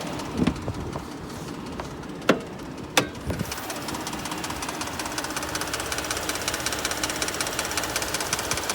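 Two sharp clicks, then about three seconds in the 2020 Ford F-150's twin-turbo 3.5 L EcoBoost V6 starts and runs with a fast, even knocking rattle: the startup knock the owner is recording.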